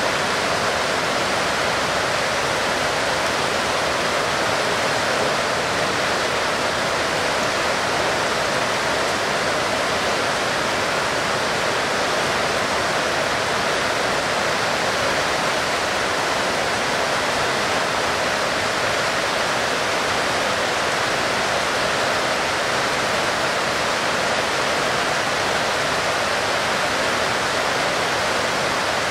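Heavy rain falling in a steady, even hiss, with no separate drops, thunder or changes standing out.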